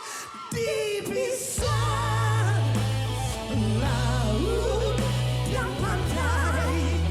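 Live pop-rock band with a singer: a wavering vocal line over the band, the bass and full band coming in about a second and a half in.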